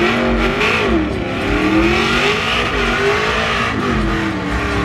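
Pickup truck's engine revving up and down several times during a burnout, its rear tyres spinning and smoking on the drag strip.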